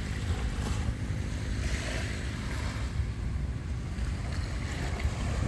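Wind rumbling on the microphone, with small waves washing softly onto a sandy shore, one wash swelling about two seconds in and another near the end.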